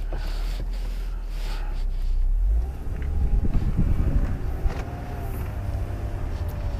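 Mercedes-Benz convertible driving with the roof down: low engine, tyre and wind rumble, growing louder about two and a half seconds in.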